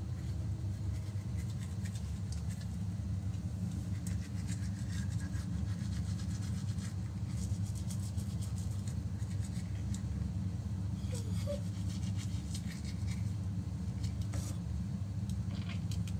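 Manual toothbrush scrubbing teeth: soft, irregular rubbing strokes over a steady low hum.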